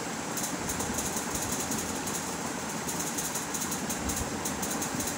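Steady background noise with a rapid, irregular crackle in the high range, at an even level throughout.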